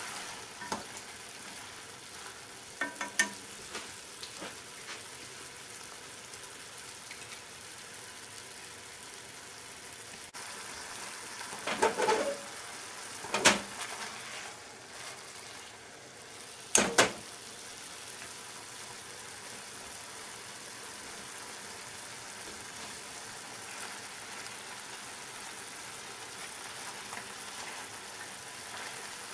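Soy-sugar dashi broth sizzling and bubbling steadily in a shallow pan of fried fish balls, daikon and carrot, the broth reduced to a little liquid at the end of simmering. Chopsticks knock against the pan a few times, most loudly a little before halfway.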